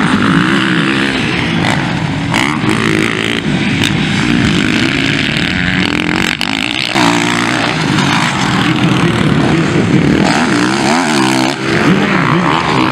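Motocross dirt bikes racing past, engines revving up and falling back over and over as the riders work the throttle through the jumps and turns, with more than one bike heard at once in places.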